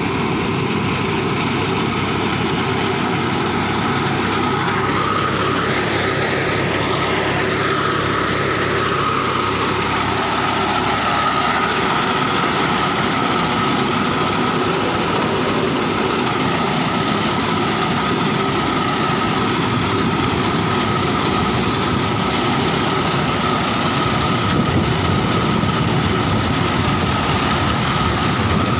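Tractor engine running steadily under load while its front-mounted reaper cuts standing pearl millet, with a steady high whine over the engine.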